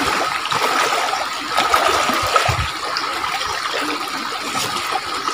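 Shallow rocky stream running and trickling steadily, with a few low splashes of someone wading in it.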